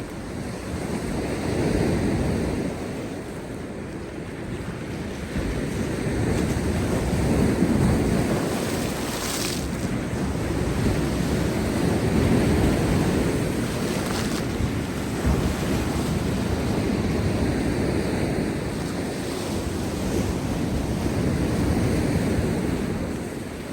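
Heavy storm surf breaking on rocks: a continuous rushing roar that swells and eases every few seconds, with sharper splashes of spray about nine and fourteen seconds in.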